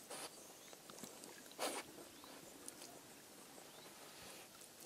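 French bulldog rooting with her nose in shallow sea water among seaweed, making a few short, noisy snuffling splashes, the loudest about a second and a half in.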